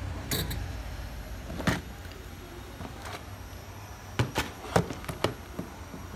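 IAI RCP2 rod-type electric actuator's stepper motor running with a low hum, which stops about a second and a half in with a sharp click. A quick run of sharp clicks and knocks follows near the end.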